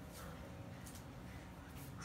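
Faint handling noise of hands brushing off potting soil: three soft, brief rustles over a low steady hum.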